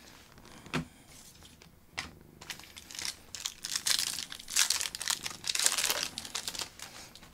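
A trading card pack wrapper being torn open and crinkled by hand, with a couple of sharp clicks first, then a few seconds of dense crackling.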